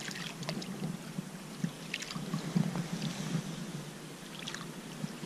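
Shallow river water sloshing and lapping, with a few light splashes, as a released sturgeon swims off.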